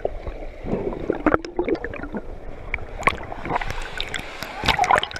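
Muffled underwater gurgling and bubbling picked up by a camera submerged in a swimming pool, with sharp clicks and splashing as water churns around it, loudest near the end as it breaks the surface.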